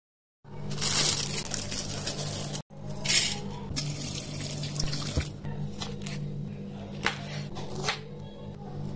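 Hissing, splashing water in a plate where bamboo skewers are put to soak, then several sharp knife strokes on a wooden chopping board near the end.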